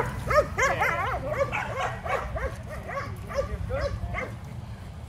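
A pack of dogs barking at once, quick overlapping barks and yips, busiest in the first couple of seconds and thinning out toward the end.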